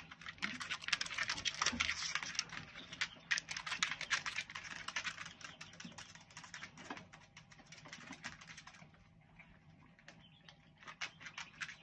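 Dogs' toenails clicking and tapping on a hard floor as several dogs shift and step about, a dense patter of clicks that thins out for a moment and picks up again near the end.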